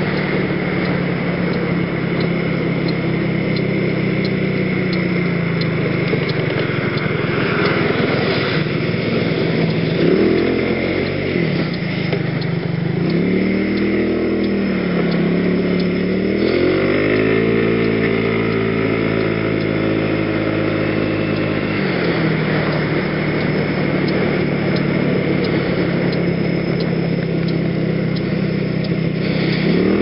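Genuine Buddy 125 (PGO Bubu) scooter's single-cylinder engine running under way, with wind noise on the helmet microphone. From about ten seconds in the engine speeds up and eases off several times. It holds a higher pitch for a few seconds, then drops back, and it picks up again near the end.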